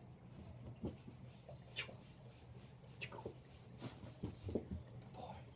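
Shepherd puppy playing: a few faint, short high-pitched dog sounds, about two and three seconds in, among light scuffling.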